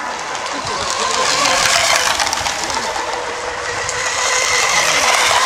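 Racing model boat's motor running flat out across the water: a steady high whine over a rushing spray-and-wind noise, swelling twice as the boat passes.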